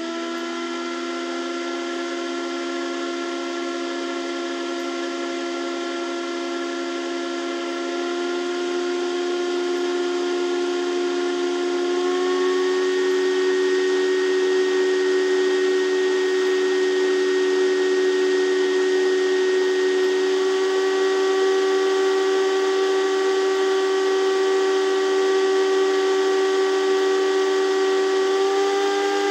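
Cooling fans on an Antminer S9 hashboard test bench running: a steady whine of several tones over the hiss of moving air. The whine steps up in pitch and gets louder about twelve seconds in, and steps up again near twenty and near twenty-eight seconds.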